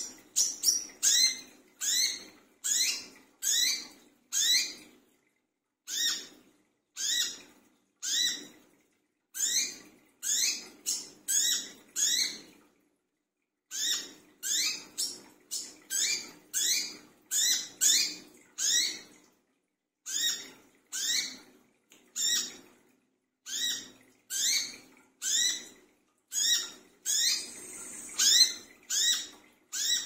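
Male brown-throated sunbird calling over and over: a long series of short, sharp, falling notes about one a second, broken by a couple of brief pauses.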